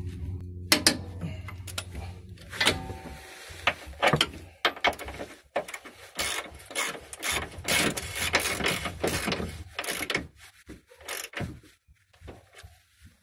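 Ratchet wrench clicking in quick runs of strokes as a front lower control arm bolt is tightened, the clicks thinning out near the end. A low steady hum sounds during the first few seconds.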